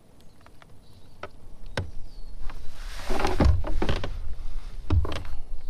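Handling noise in a kayak: scattered clicks and knocks, then a rushing scuffle about three seconds in with two heavy thumps, one soon after and one near the end, over a low rumble that builds partway through. A short bird chirp sounds about two seconds in.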